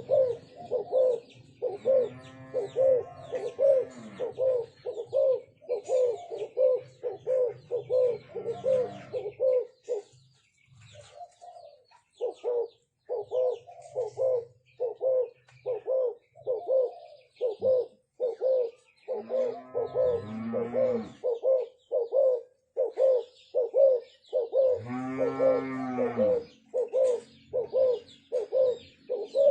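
Spotted doves cooing: a quick, even series of short coos about two a second, pausing briefly about a third of the way in. Deeper, drawn-out coos come in three times underneath.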